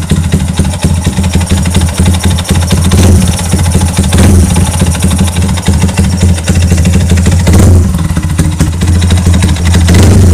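Yamaha Y15ZR motorcycle's single-cylinder four-stroke engine running, very noisy, with a loud fast rattle over its low rumble. The noise comes from the left (magneto) side, where the rivets holding the flywheel magnet have worked loose and let the magnet shift on its hub.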